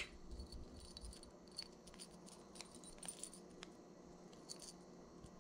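Faint, scattered small metallic clicks and clinks as split-ring pliers work a split ring and hook onto a metal spoon lure.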